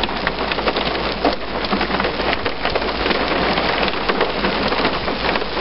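Heavy downpour mixed with small hail, about dime to penny size, pelting hard ground: a loud, steady hiss of rain crowded with sharp ticks from hailstone impacts.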